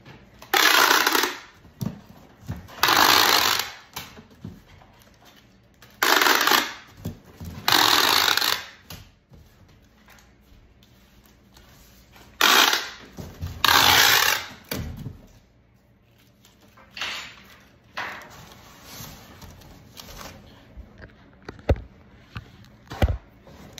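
Packing-tape gun pulling clear tape off its roll across a cardboard box: six loud screeches of tape unrolling, mostly in pairs, then a couple of fainter ones. Two sharp knocks near the end.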